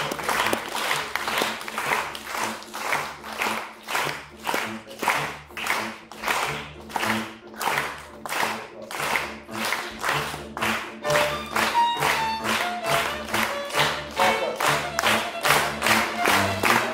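Audience clapping along in a steady beat, about two and a half claps a second, over music; a few held melody notes come in about eleven seconds in.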